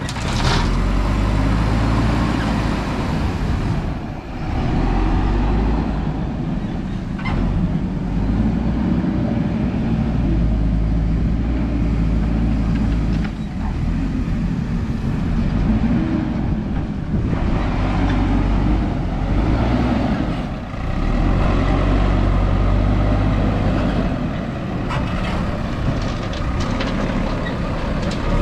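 Diesel engine of a JCB 3DX backhoe loader working under load while loading gravel, its revs swelling and easing every few seconds, with a couple of brief clatters.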